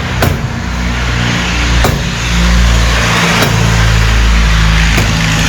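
Four blows of a rubber mallet, about one every second and a half, on a wheel seized to its hub. Under them runs a steady low machine hum, with a hiss that swells from about two seconds in.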